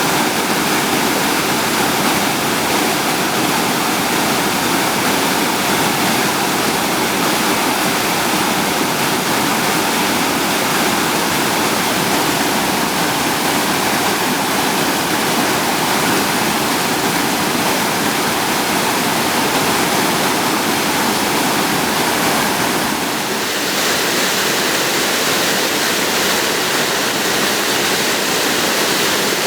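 Waterfall: a loud, steady rush of falling water. About three-quarters of the way through it dips briefly and then sounds brighter and hissier.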